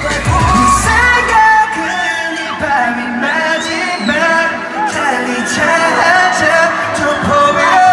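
Male pop singer singing live into a handheld microphone over a backing track played through PA speakers. The deep bass drops out about a second and a half in, leaving the voice over lighter accompaniment.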